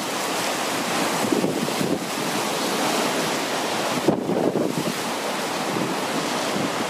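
Choppy lake waves splashing and breaking on shoreline rocks in a strong foehn gale, with the wind buffeting the microphone in uneven gusts.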